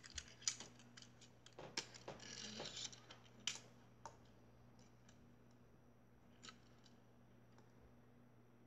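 Clicks and light rattles from a plastic toy fire truck being picked up and handled, with a short rustle about two seconds in. After about four seconds only a faint steady hum and an occasional tick remain.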